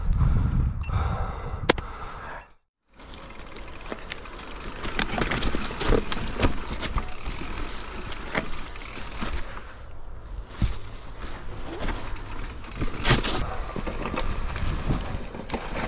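Mountain bike descending a steep, rocky trail: tyres running over stones and roots, with many sharp knocks and clicks from the bike as it hits obstacles. The sound cuts out completely for a moment just under three seconds in.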